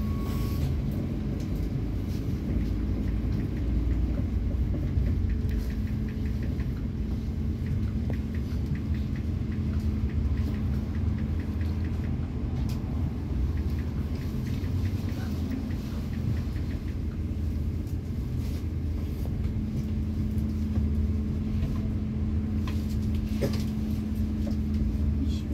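Cabin sound of a ZiU-682 trolleybus on the move: a steady low rumble of tyres and body on the road, with a steady hum that fades for several seconds mid-way and then returns. A run of quick light ticks, about three a second, starts a few seconds in and lasts several seconds.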